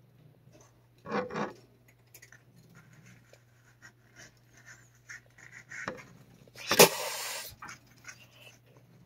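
Defensive, angry cat hissing and growling at a gloved hand: a short two-part growl about a second in, soft rubbing of the knit glove on its fur, then one loud spitting hiss near the end.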